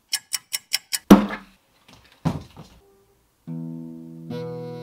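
Five quick sharp taps, then two heavy thuds about a second apart, the first the loudest. Near the end an acoustic guitar strums a chord that rings on, then a second chord.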